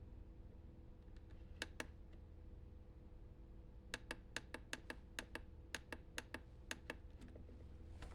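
Faint sharp button clicks: two about one and a half seconds in, then a quick run of a dozen or so from about four seconds in, as the RC car's LED light modes are cycled. A faint steady hum lies underneath.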